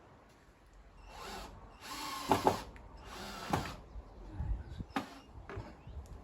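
A power tool, drill-like, run in three short bursts of about half a second each, followed by a single sharp knock about five seconds in.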